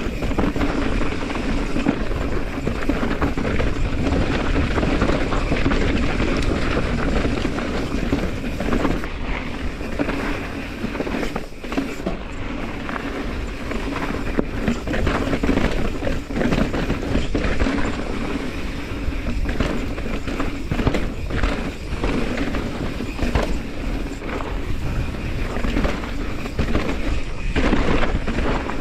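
Mountain bike riding down rocky dirt singletrack: tyres rolling and crunching over dirt and stones, with a constant rattle and many small knocks from the bike over bumps.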